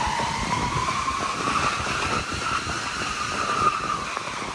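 A stack of plastic moving boxes pushed by hand along a hallway floor, scraping with a drawn-out squeal over a rough grinding rattle. The squeal rises slowly in pitch and dips a little near the end.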